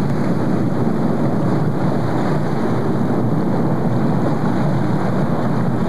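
Small fishing boat under way at sea: a steady, loud rush of its motor running and water spraying off the hull, with wind buffeting the microphone.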